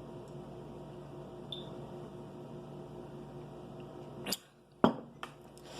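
Low steady hum of a small room. About four seconds in, a sharp click cuts it off, then comes a louder sharp click and a few faint ticks, of the kind made while eating at a table.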